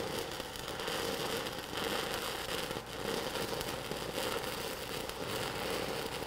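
Stick-welding arc of a 1/8-inch 6010 electrode at 80 amps crackling steadily as it lays an uphill open root pass on 3/8-inch steel plate, the rod stitched in and out of the keyhole. The crackle dips briefly about three seconds in.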